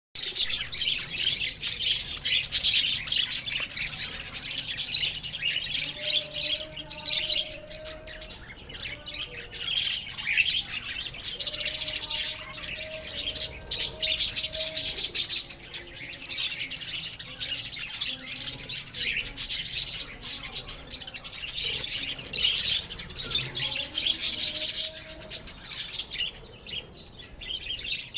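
A colony of budgerigars chattering and chirping continuously, many birds calling at once.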